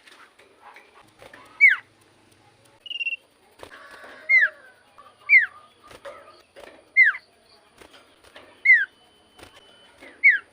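Iora (cipoh) singing: a series of six loud, sharply down-slurred whistles, about one to one and a half seconds apart, with a short buzzy trill near the start.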